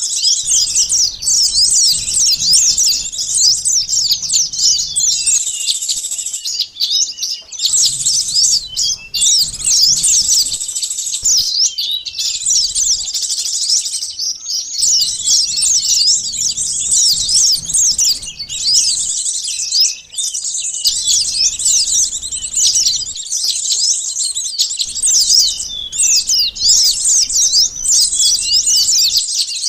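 Bird-lure recording of small birds such as sunbirds chirping in a dense, agitated crowd: rapid, high-pitched, overlapping chirps without pause, the kind of racket played to draw small birds in.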